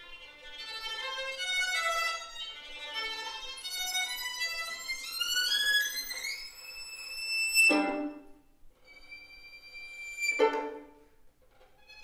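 Solo violin playing fast runs of notes, then a long rising glide up to a high held note that ends in a sharp, accented stroke. A second high held note then ends the same way. This evokes the eastern whipbird's long whistle and whip-crack call.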